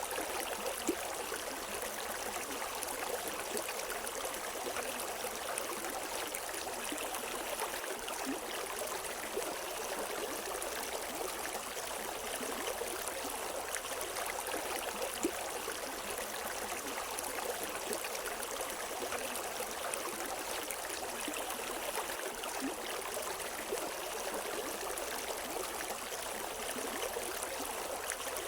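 River water flowing over rocks, a steady rushing babble with small splashes and gurgles, no birds.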